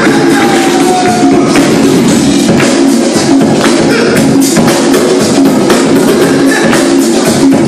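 Loud hip-hop break music with a steady drum beat, about two hits a second, and tambourine-like jingles.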